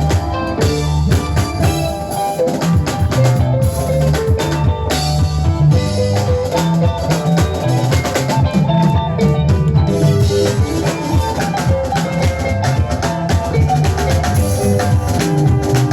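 Live band playing an instrumental: a drum kit keeps up busy, fast hits over a sustained bass line that steps between notes, with pitched instruments holding notes above.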